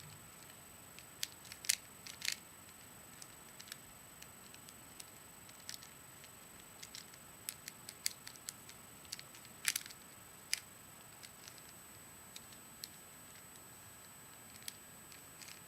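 Rubik's Cube being twisted: irregular plastic clicks as its layers turn, a few louder ones, over a faint steady hiss with a thin high whine.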